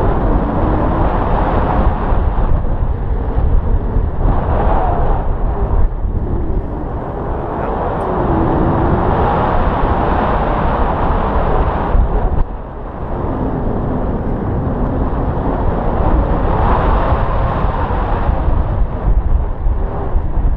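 Wind from a paraglider's flight rushing over the microphone: a steady low rumble that dips briefly about twelve seconds in.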